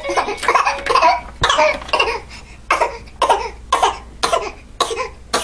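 Deliberate fake coughing: a long run of short, sharp coughs, bunched at first and then about two a second, put on for attention.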